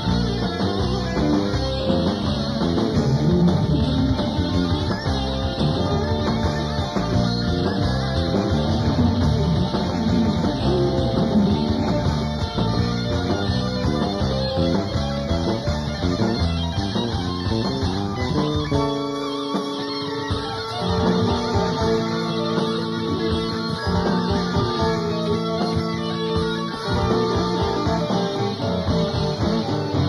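Studio rock band recording with guitar, bass and drums. About two-thirds of the way through, the bass and drums thin out and long held chords carry the music.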